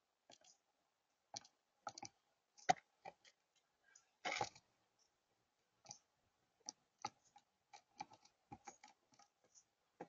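A blue jay at a seed feeder making irregular sharp taps and clicks with its bill and feet on the plastic tub and tray, with a short scuffle about four seconds in.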